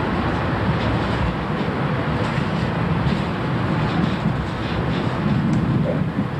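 Steady rumble and rail noise heard from inside a moving diesel-hauled commuter train coach, with a few faint ticks from the wheels over the track.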